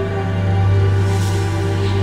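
Ominous soundtrack music: a steady low drone under held sustained tones, with a faint airy swish about a second in.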